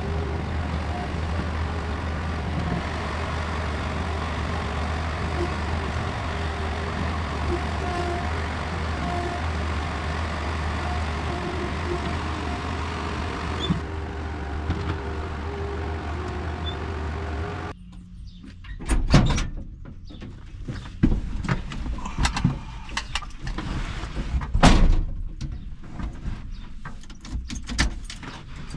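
Bobcat 773 skid-steer's diesel engine running steadily with a low hum. About eighteen seconds in it cuts off suddenly to a quieter scene of scattered clunks and knocks.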